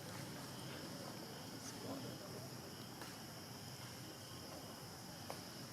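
Faint outdoor ambience: a steady, high-pitched insect drone, with a few soft clicks.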